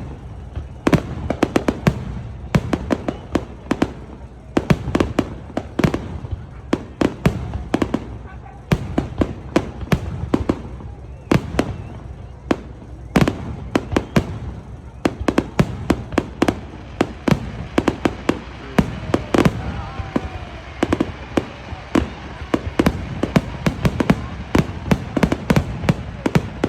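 Fireworks display: a dense, irregular string of sharp bangs and booms, several a second, over a continuous low rumble.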